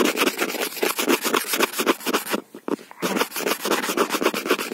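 Rapid scratching and rubbing right at a phone's microphone, many strokes a second, with a brief break about two and a half seconds in.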